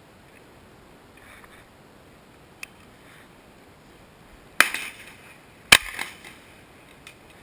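Double-barrel shotgun firing two shots about a second apart, each a sharp loud blast with a short echo. A faint click comes a couple of seconds before them.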